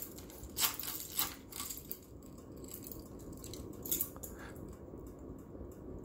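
SMC Impressions ceiling fan coasting down after being switched off: a steady low whir, with a few light clicks in the first two seconds.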